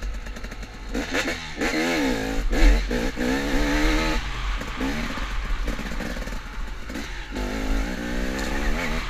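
KTM dirt bike engine revving up and down repeatedly as the throttle is worked through a wooded trail, pitch rising and falling over a steady low rumble.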